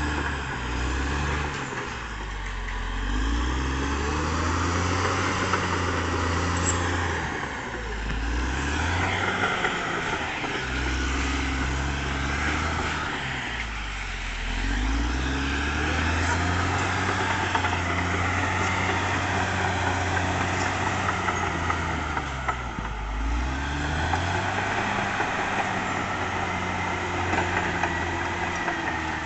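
Caterpillar D6R XL bulldozer's diesel engine running under load, its note dipping and recovering several times as it works.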